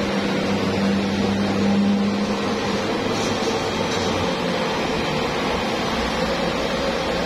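Steady mechanical hum over constant noise, like a running machine; a deeper drone within it drops away about four seconds in.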